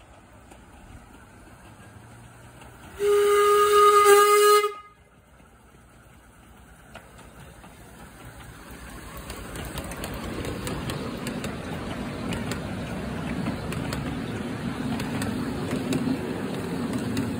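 A miniature steam locomotive sounds its whistle once, a single steady note held for nearly two seconds. Then the train's running noise, with light clicks of the wheels on the track, grows louder as the locomotive and its carriage approach and pass close by.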